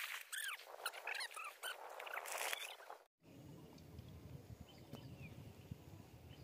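Birds chirping in a quick series of short, arching high calls. About three seconds in the sound cuts to a low, steady rumble of river water around a man wading with a cast net, with a few faint chirps over it.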